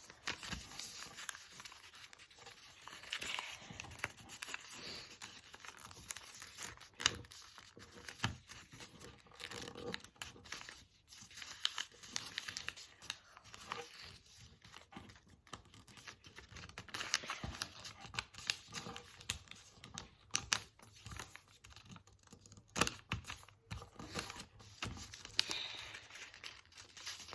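A sheet of paper being handled and folded: on and off rustling and crinkling, with short sharp creases and taps as folds are pressed down.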